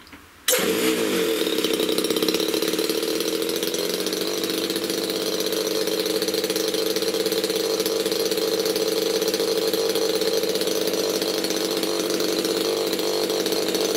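RCGF 15cc Stinger single-cylinder two-stroke petrol model-aircraft engine turning its propeller. It starts about half a second in, with a brief change of pitch as it catches, then runs steadily.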